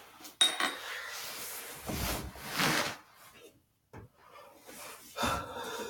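Rubbing and scraping handling noise, as of hands working the tool close to the microphone: one long stretch of rasping that fades out about three seconds in, then fainter scraping near the end.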